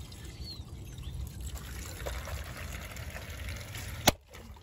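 Steady trickling water with a low rumble under it, and one sharp knock about four seconds in.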